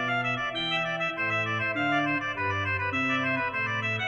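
Johannus digital church organ playing polyphonic music: full sustained chords, with the bass notes changing every half second or so.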